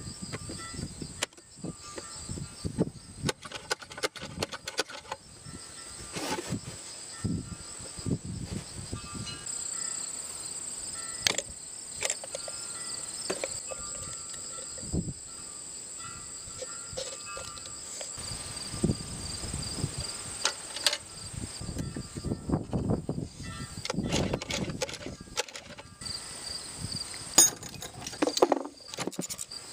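Insects chirping steadily throughout, under irregular clicks, knocks and low thuds of hard objects being handled and set down.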